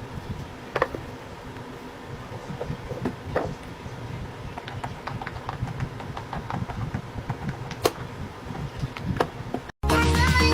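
Scattered small clicks and taps of a fidget toy being handled, over a low steady background hum. Near the end it cuts sharply to loud music.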